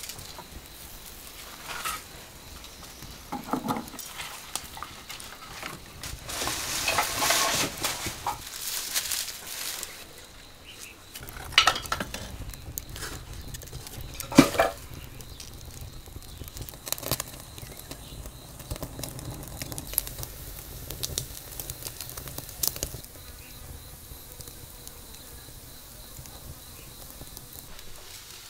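Wood fire crackling in a brick stove's firebox, with scattered sharp clicks and knocks of firewood and iron tongs being handled. A rushing noise swells for a couple of seconds about a quarter of the way through.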